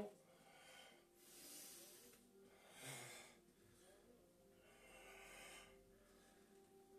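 Faint, slow breathing of a man during a stretching exercise: about three long, audible breaths, each lasting about a second.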